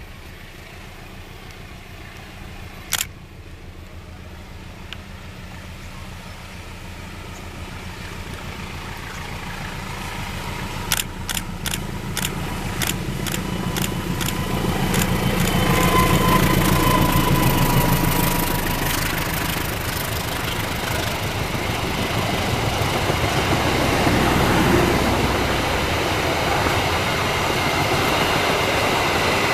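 A train approaching, its rumble growing steadily louder throughout. There is a single sharp click about three seconds in and a quick, evenly spaced run of sharp clicks between about eleven and fourteen seconds in.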